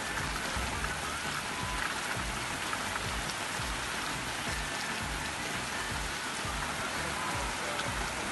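Heavy rain falling in a steady, dense hiss from a storm, with background music underneath.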